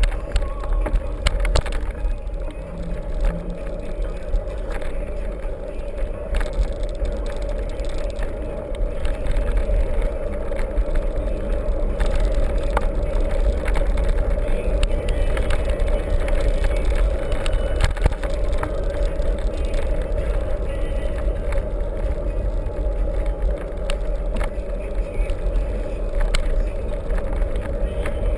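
Mountain bike rolling along a trail, with tyre noise, a steady hum and scattered rattles and clicks over a heavy low rumble of wind on the microphone.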